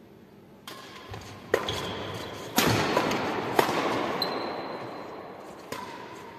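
Badminton racket strikes on a shuttlecock during a doubles rally: five sharp hits about a second apart, the loudest two in the middle, each ringing on in the echo of a large hall.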